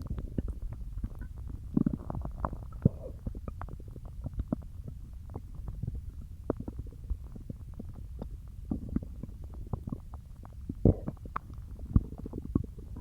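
A human stomach gurgling while digesting peanut butter: a steady low rumble full of short gurgles and pops, with louder gurgles about two seconds in and twice near the end.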